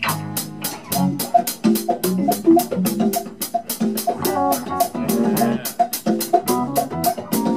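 Live funk band playing an instrumental groove: electric guitar, bass, drums and hand percussion, with a steady high ticking of about four to five strokes a second over repeated pitched riffs.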